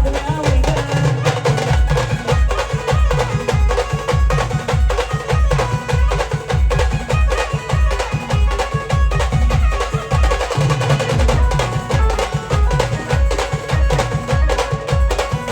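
Live village band playing an instrumental passage of folk music: an even, driving drum beat under a sustained melody line, with no singing.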